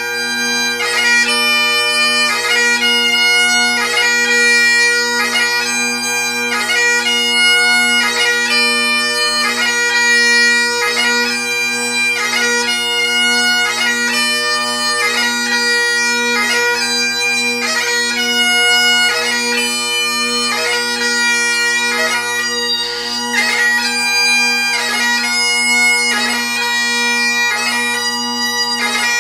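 Great Highland bagpipe playing a piobaireachd: the drones hold one steady note under the chanter's slow melody, which is broken about every second by quick grace-note flourishes.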